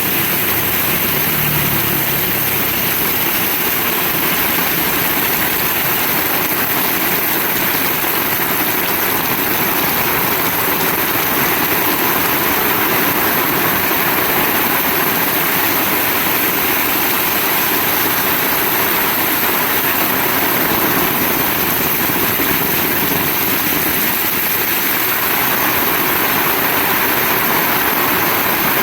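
Heavy rain falling steadily: a dense, even hiss of downpour with no let-up.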